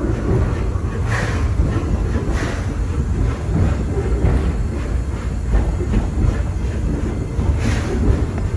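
Steam train running on the rails, heard from the car just behind the locomotive's tender: a steady low rumble of the running gear, with a few short hissing puffs of steam exhaust, about a second in, again a second later, and near the end.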